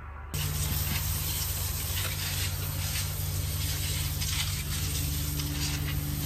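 Garden hose spray nozzle watering flowers and soil in a planter box: a steady hiss of spraying water that starts abruptly about a third of a second in, over a steady low hum.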